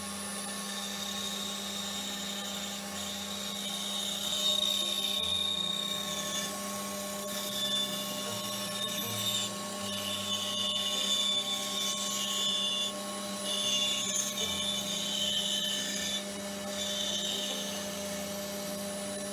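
Bandsaw running with a steady hum while its blade cuts a curve through a thick wooden slab; a higher whine swells and fades repeatedly as the blade works through the wood.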